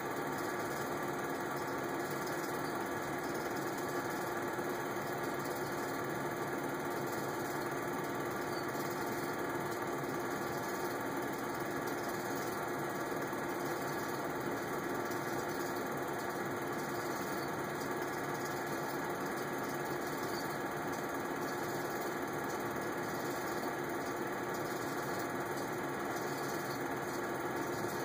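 Film projector running steadily: an even motor hum with the whir of the film transport, unchanged throughout.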